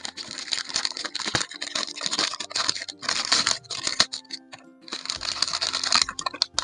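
Plastic toy packaging being crinkled and torn open by hand in several bursts of rustling.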